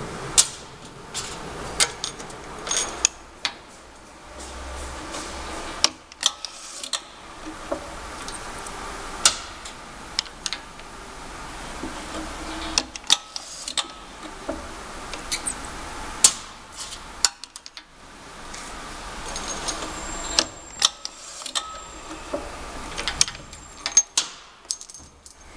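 Semi-automatic round-bottle labelling machine running, with frequent irregular sharp clicks and clacks over a faint low motor hum.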